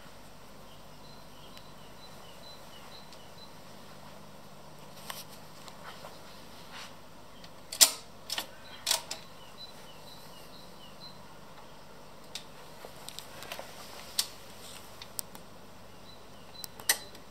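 Braun PS 600 turntable's push-button controls and tonearm mechanism clicking: scattered sharp mechanical clicks, the loudest about eight seconds in and another about nine seconds in, then smaller ones, over a faint low hum.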